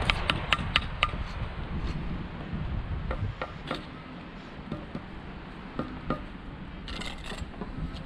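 A mason's hand tool tapping on a sandstone walling block as it is laid: a quick run of about five sharp, slightly ringing taps at the start, a few scattered knocks, then a short scrape near the end.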